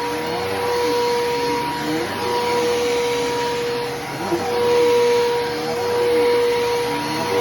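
Bissell Powerforce Helix Turbo upright vacuum cleaner running with a steady motor whine. A lower tone under it wavers up and down every second or so as the loudness swells and dips.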